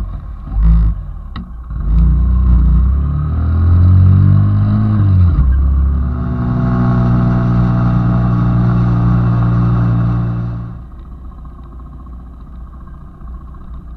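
Small motorcycle engine pulling away: its pitch rises under acceleration, drops suddenly about five seconds in as it shifts up, then holds steady before easing off near the end.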